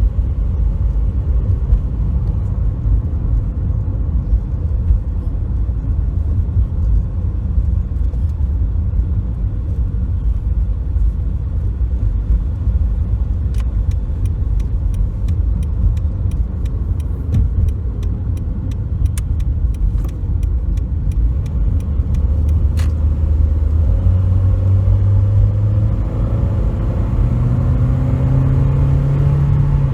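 2007 Toyota Corolla S being driven: a steady low rumble of engine and road noise. A regular ticking runs for about ten seconds in the middle, and near the end the engine rises in pitch as the car accelerates.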